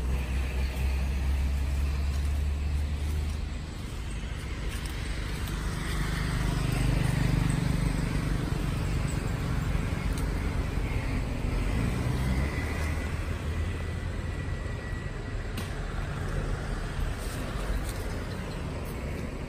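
Low rumble of road traffic, swelling and fading as vehicles pass.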